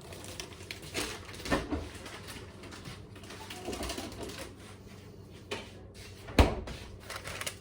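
Kitchen handling sounds: a scattering of clicks and knocks, the loudest a sharp knock about six seconds in.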